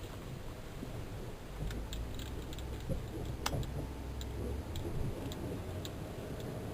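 Cabin sound of a 1994 Cadillac DeVille on the move: a low engine and road rumble that swells about a second and a half in. Light, irregular clicks and ticks run through it, with one sharper click midway.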